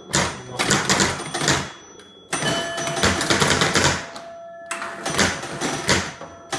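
1950 Gottlieb Madison Square Gardens woodrail electro-mechanical pinball machine in play: four bursts of rapid mechanical clattering from its relays and scoring units as the ball scores, with a bell ringing after some of them.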